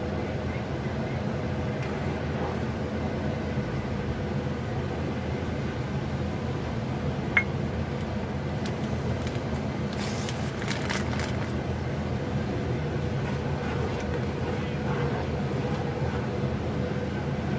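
Steady low mechanical hum with hiss, with one sharp click about seven seconds in and a few brief clinks a little later.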